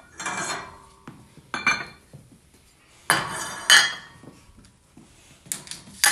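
Metal weight plates clanking and scraping against a steel barbell sleeve as small plates are slid off and on, in four bursts of clinks with a short ring, the loudest a little past halfway.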